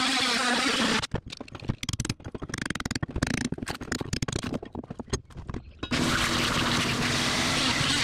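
Cordless oscillating multi-tool buzzing as it cuts into rotted transom plywood. About a second in it stops, and a hand chisel scrapes and chips at the wood in irregular strokes for several seconds. From about six seconds in, the multi-tool runs again steadily.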